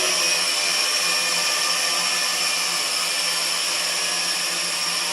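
Kaideng K80 Pantonma toy quadcopter's small motors and propellers whirring steadily in flight.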